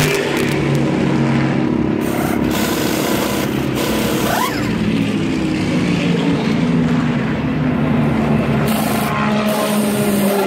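Race car engines running steadily, their pitch sliding slowly and falling near the end, with a few short hissing bursts over them.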